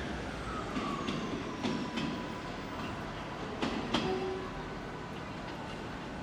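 A Great Western Railway diesel multiple unit pulling out of the station. Its wheels give a faint squeal that glides down in pitch and then holds, and a few sharp clicks over the rail joints. The sound slowly fades as it departs.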